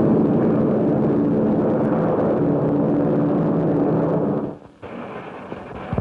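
Loud engine noise: a rushing hiss with several steady low tones, lasting about four and a half seconds and cutting off abruptly.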